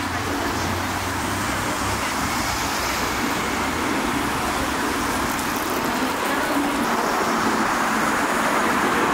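Steady road-traffic noise of a busy city street, an even rush without distinct events.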